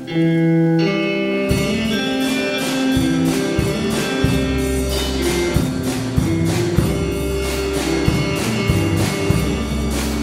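Recorded music: a held chord opens, then a steady beat with bass comes in about a second and a half in.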